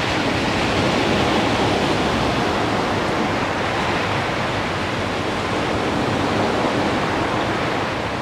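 Ocean surf breaking and washing up a sandy beach: a steady rush of waves with no distinct pauses.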